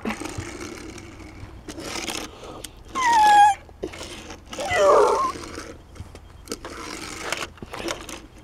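A man making mouth sound effects for a toy car: short high whining glides, one falling about three seconds in and another near five seconds. Between them a Hot Wheels die-cast car clicks and scrapes lightly as it is pushed along a table.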